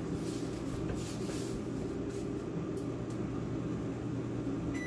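Steady hum of an air fryer's fan running, with butter sizzling in a pan on the stove.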